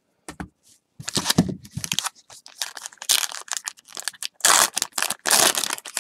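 Foil baseball card pack being torn open and crinkled by hand, in irregular crackling bursts that grow denser and louder in the second half.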